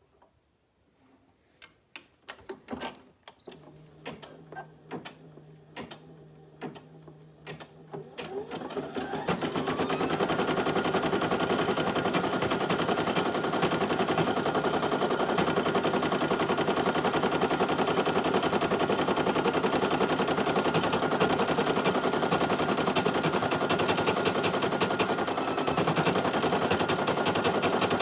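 Brother PE800 single-needle embroidery machine. A few scattered clicks and a low hum come first. About eight seconds in, the machine winds up over a couple of seconds into rapid, even stitching, which runs steadily at speed.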